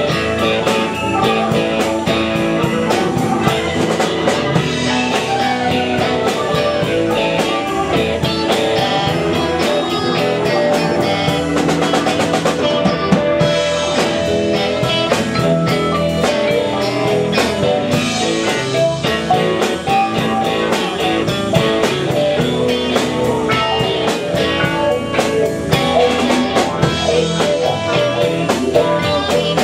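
Live blues band playing: electric guitars, electric bass, keyboard and a drum kit.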